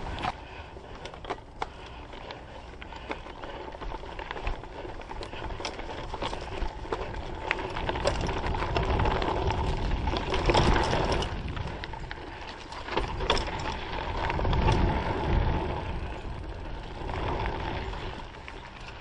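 Mountain bike ridden along dirt singletrack: a constant rush of tyres on the trail with rapid clicks, knocks and rattles from the bike jolting over bumps, growing louder in two stretches around the middle and about three-quarters through.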